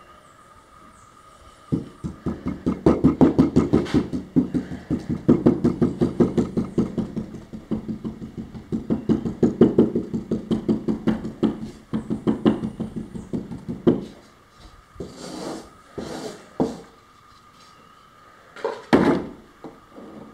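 Rapid, even tapping of a wooden stick jabbing resin into fiberglass cloth layers against a plywood mold, for about twelve seconds. A few scattered knocks and handling noises follow, with one louder knock near the end.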